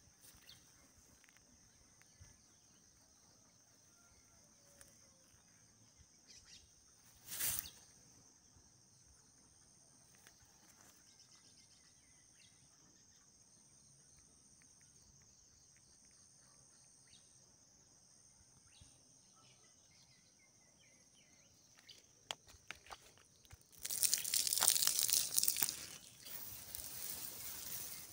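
Faint, steady high-pitched insect drone in the background, with a short rustle about seven seconds in. Near the end comes a louder rushing hiss lasting a few seconds.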